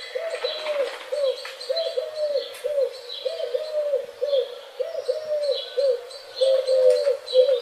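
Pigeons cooing in short, arched, repeated notes, one after another without a break, with faint chirps of small birds behind them.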